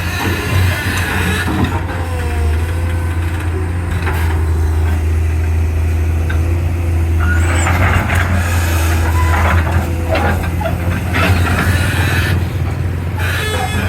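Excavator's diesel engine running steadily, with metal clanks and scraping from the digging gear about halfway through.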